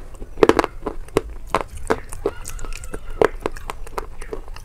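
Close-miked crunching and chewing of a dry, brittle food: irregular crisp cracks, about two or three a second.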